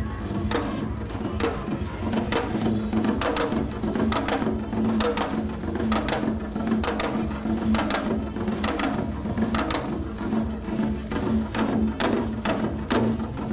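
Korean traditional drum performance: a janggu struck with sticks in quick, uneven strokes, over a steady low tone in the accompanying music.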